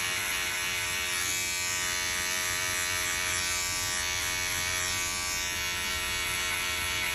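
Wahl electric hair clipper, fitted with a guard, running steadily as it cuts and blends short hair on the side of the head.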